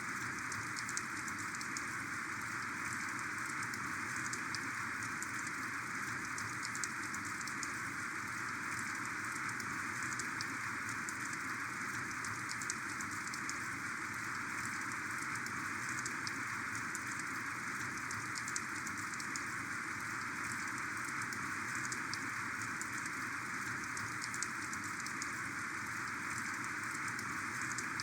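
Heavy rain falling steadily, a dense even hiss with many small drop ticks through it.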